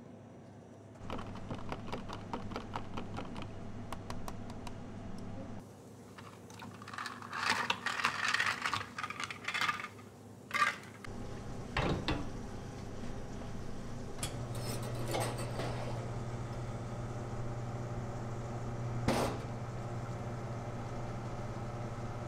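Espresso machine in use: clattering and sharp metal knocks as the portafilter is handled and locked into the group head, then a steady hum from the machine running as a shot of espresso pours. Earlier, a lower hum with fast clicking runs for a few seconds.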